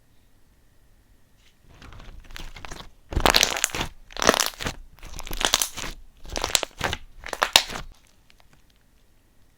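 Crinkling and crunching as something is worked by hand, in five loud bouts about a second apart after a softer start.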